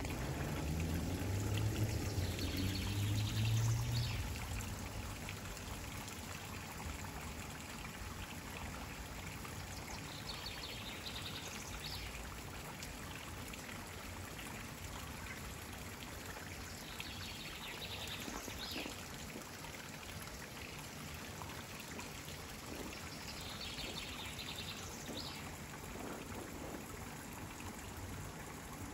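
Water spilling over a small concrete canal weir and running down the channel below, a steady rushing trickle. A low rumble sits under it for the first few seconds, and short high chirping phrases recur four times.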